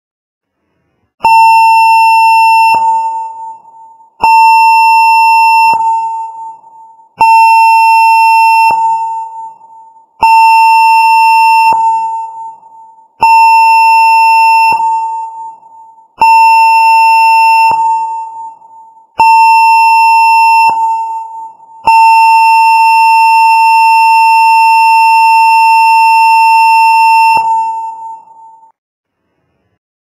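Emergency alert (EAS) alarm tone: a single high electronic tone sounded seven times, about every three seconds, each held about a second and a half and then fading. It ends with one longer held tone of about five seconds that fades out.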